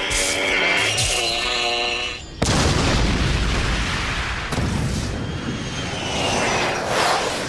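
Film sound effects of a large explosion: a sudden heavy blast about two and a half seconds in, followed by a long rumbling roll of noise that fades out near the end. It is preceded by a held, pitched sound.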